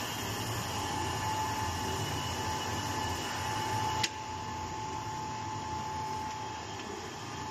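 Steady running hum of the vacuum emulsifying mixer's machinery, with a thin high whine over it. A sharp click about four seconds in, after which the running sound is a little quieter.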